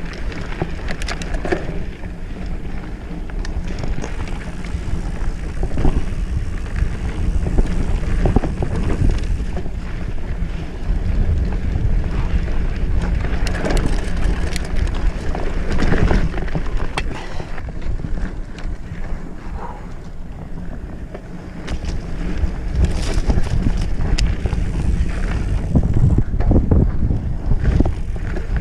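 Mountain bike riding over a rough dirt trail, heard from a camera on the rider: steady wind rushing on the microphone and tyre rumble, with scattered sharp clatters and knocks from the bike jolting over bumps.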